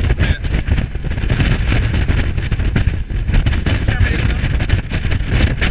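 Speedboat running at speed: a loud, steady rumble of engine and rushing water, with wind buffeting the microphone.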